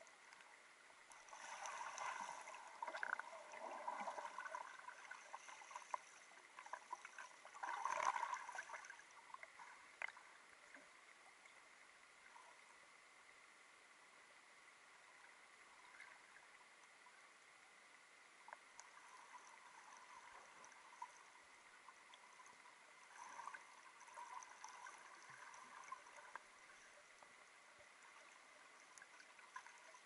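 Faint, muffled water sounds heard through a submerged camera: a swimmer's strokes stirring the water, bubbling and sloshing in irregular bursts, busiest in the first ten seconds and again a little past the middle. A thin steady high tone runs underneath.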